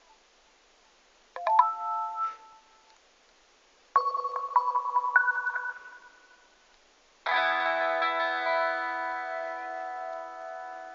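Three different notification tones from a Vodafone Smart 2 phone's speaker, one after another: a short chime a little over a second in, a quick run of plucked notes about four seconds in, and a full chord from about seven seconds in that rings on and slowly fades.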